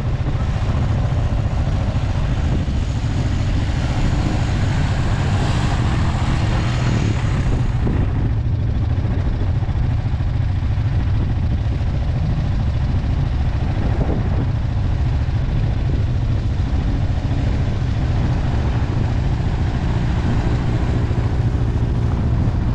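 Off-road vehicles' engines running as they ford a shallow muddy creek, with a steady low rumble throughout. Water splashes from about 3 to 8 seconds in as a quad ATV churns through. Near the end a four-seat side-by-side UTV's engine draws closer as it drives out of the water.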